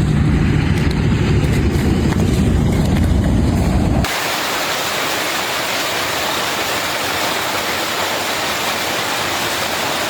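A heavy low rumble with a steady hum that cuts off abruptly about four seconds in. It gives way to the even, steady hiss of a hailstorm pouring down.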